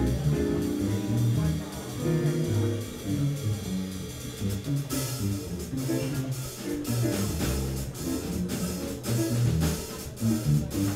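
Upright double bass played pizzicato in a jazz solo, a line of plucked low notes. About halfway through, a drum kit joins with cymbal strokes.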